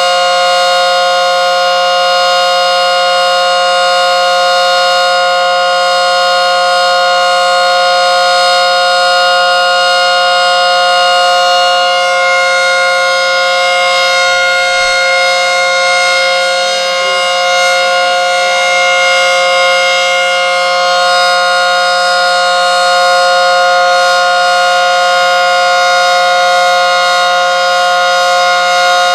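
ACA Screamer S10 civil defense siren, wired to run in reverse, sounding a full alert: two loud tones held together at a steady pitch, with no rise or fall.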